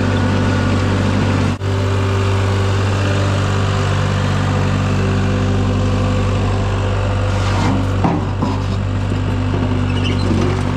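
Engine of a compact construction machine running steadily at a constant speed, with a brief dropout about a second and a half in and a few knocks near the end.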